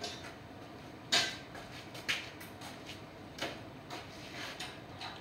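Several sharp metal clanks and knocks, the loudest about a second in, from a steel engine hoist and engine stand being handled and shifted.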